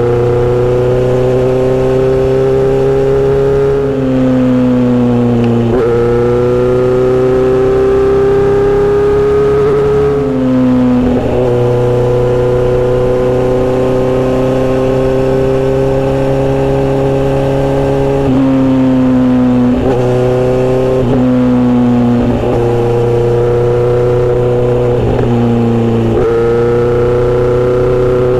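Kawasaki Z900RS inline-four running through a Misty Kintaro short steel-pipe exhaust with L silencer, heard while riding. The note climbs slowly under throttle and breaks off briefly with a drop in pitch about four seconds in, about ten seconds in, and several times in the last ten seconds.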